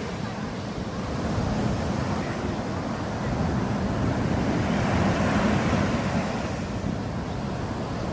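Sea waves washing in, with wind buffeting the microphone; the surge swells a little past the middle.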